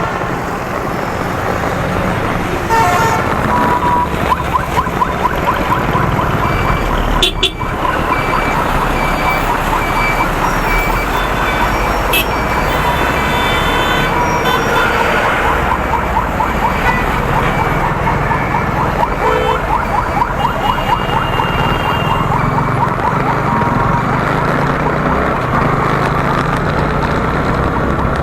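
Motorcycle riding through road traffic: steady engine and road noise, with short vehicle horn toots now and then.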